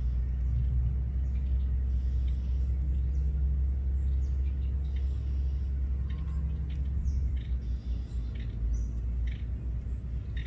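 Steady low rumble with short, faint high chirps scattered over it.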